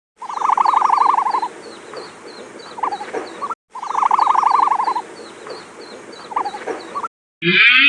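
An animal call played twice in a row, the same short recording each time: a rapid pulsing call lasting just over a second, then a brief single call, with faint high chirps ticking steadily in the background.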